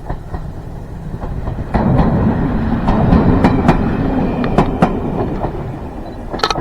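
Train passing close by: a rumble that swells sharply about two seconds in, with wheels clicking over rail joints, then easing off near the end.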